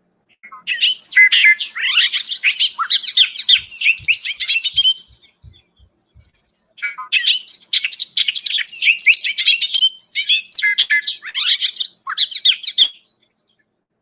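Recording of a bobolink singing: two long runs of rapid, tumbling notes that jump up and down in pitch, the second beginning about seven seconds in.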